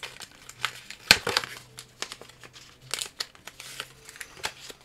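Crinkly plastic wrapper of a McDonald's 25th Anniversary Pokémon card pack being handled, crackling irregularly, with a sharp crackle about a second in.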